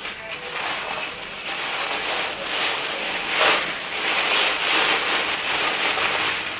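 Packaging being handled and unwrapped, with irregular rustling and crinkling throughout and a louder crinkle about three and a half seconds in.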